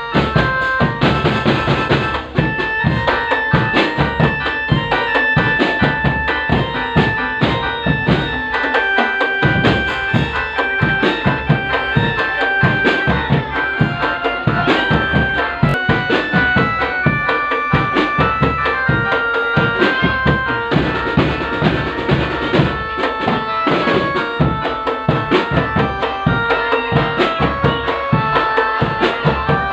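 Drum band music: fast, steady drumming with bass drum under a melody of short held notes.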